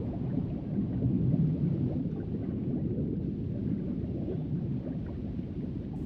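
Underwater sea ambience: a steady low rumble of moving water with small bubbling gurgles.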